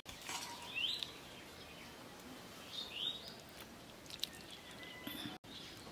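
Birds chirping in the background: two short rising chirps, about a second in and again about three seconds in, over faint outdoor ambience.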